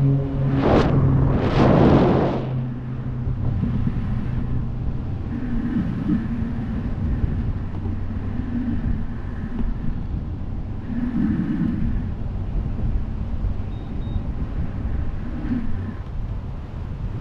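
Wind rushing across a handheld 360 camera's microphone during parachute canopy flight, heard as a steady low rumble. Two loud gusts come about one and two seconds in.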